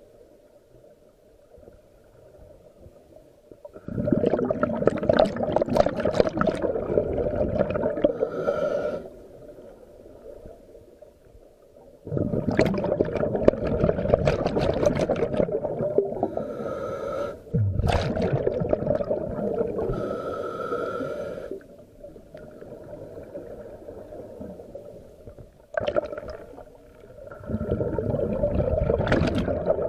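Scuba diver breathing through a regulator underwater: long bubbling exhalations lasting several seconds each, with quieter hissing inhalations between them.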